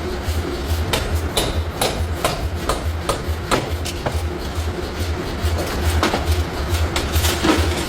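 Irregular clanks and knocks of hot steel being worked in a forge shop, over a low pulsing hum.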